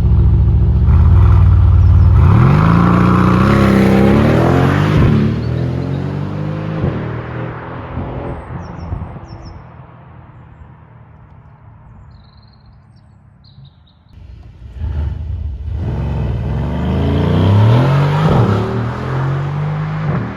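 Mercedes-AMG GLC 63 S's 4.0-litre twin-turbo V8 accelerating hard. The engine note climbs in pitch through a couple of gear changes, then fades as the car pulls away. A second hard acceleration comes about 14 seconds in, its note again rising through the gears.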